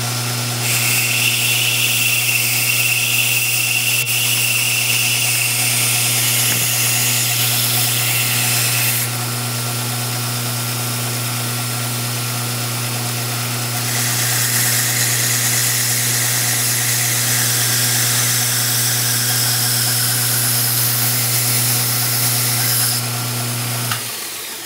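A 1x42-inch Kalamazoo belt grinder running a linen belt charged with CBN paste, with a hard-steel knife blade pressed against it in two long passes of steady hissing, the first with a faint high whine. The grinder's hum stops near the end.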